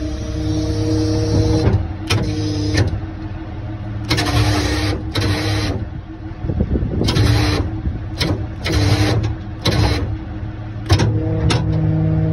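Tow truck's hydraulic system running while it is bled: a steady engine-driven pump hum, broken by repeated bursts of hiss as the controls are worked, and a couple of sharp clicks near the end.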